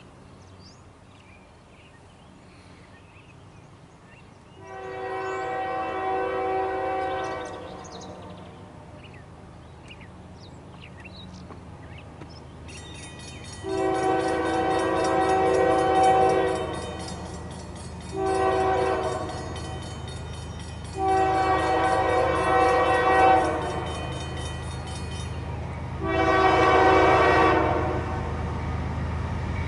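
CSX freight train's locomotive horn sounding five blasts as the train approaches, the third one short and the others long. The low rumble of the oncoming train grows underneath.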